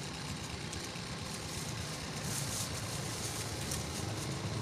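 Small electric desk fan running steadily, blowing on a charcoal grill: a low hum under an even hiss.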